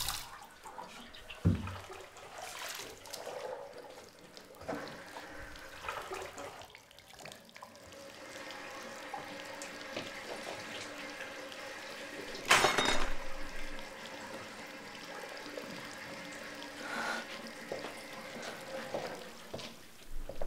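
Bathroom sink tap shut off, leaving a thin trickle and drips, then scattered faint knocks with a low thud early on and one louder short clatter about twelve seconds in.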